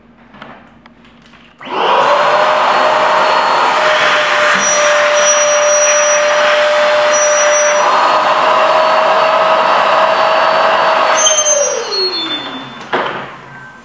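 Electric balloon inflator blowing air through its hose into a balloon. The motor starts about two seconds in and runs steadily with a constant whine for about ten seconds, then is switched off and winds down with a falling whine, followed by a click.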